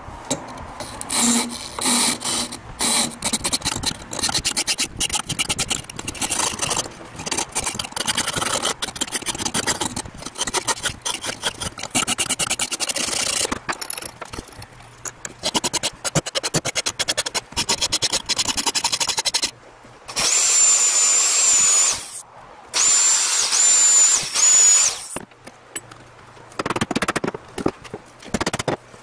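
Rapid scraping strokes of a hand tool working a plywood piece, in runs with short breaks. Later a handheld gas torch hisses with a high steady whistle in two bursts of about two seconds each as it chars the wood.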